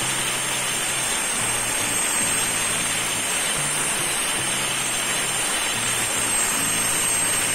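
Background music with a stepping bass line over a steady rushing noise from an angle grinder cutting wood with a wood-cutting disc. The grinder has a worn bearing that lets the disc wobble.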